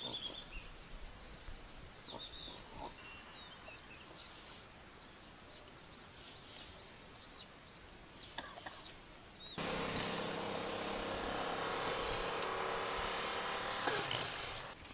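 Faint outdoor ambience with a few bird chirps. About ten seconds in, a louder, steady droning tone starts abruptly and runs for about four seconds before fading.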